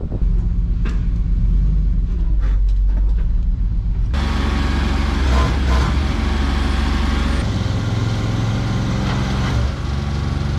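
A large engine running steadily, heavy-truck in character. About four seconds in the sound changes abruptly to a louder, hissier engine noise.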